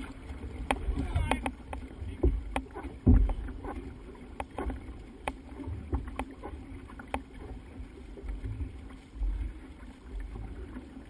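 An outrigger canoe under paddle: water rushing past the hull, with a frequent sharp splash or knock from the paddle strokes, and wind rumbling on the microphone.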